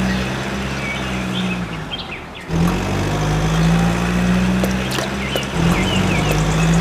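A motor running steadily with an even hum, cutting out briefly about two seconds in and then running on, with birds chirping over it.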